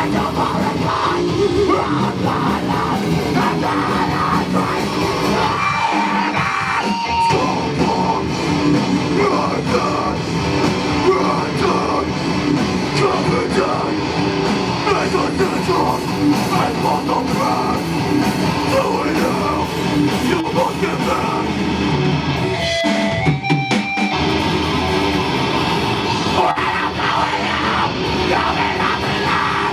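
A heavy rock band playing live: distorted electric guitars and drums, with vocals. The drums drop out briefly twice, about six and twenty-three seconds in, leaving a few held guitar notes.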